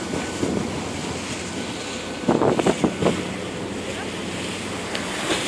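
Wind buffeting the microphone and choppy sea rushing past a moving boat, over the faint steady drone of its engine, with a few louder splashes about two seconds in.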